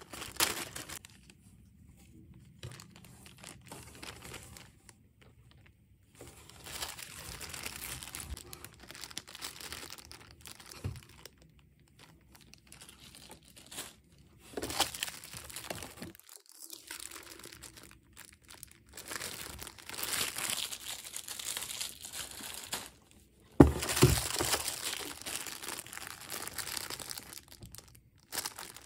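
Clear plastic packaging bags crinkling in irregular bursts with short pauses as small bagged items are handled in a cardboard box. A sharp snap near the end is the loudest sound.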